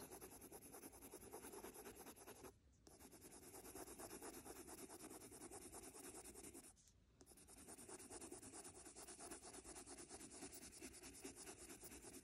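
Prismacolor Deco Pink coloured pencil, held on its side and shading lightly on paper: faint, rapid back-and-forth scratching that pauses briefly twice.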